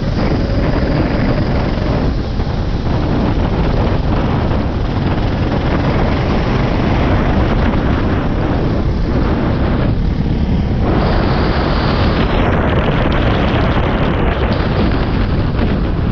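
Go-kart engine running on track, buried under heavy wind buffeting on the microphone, with a brief dip about ten seconds in.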